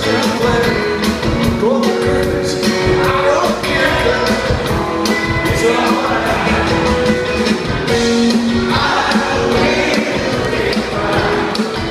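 Live rock band performing, with electric guitars, upright bass and organ, and singing over the top.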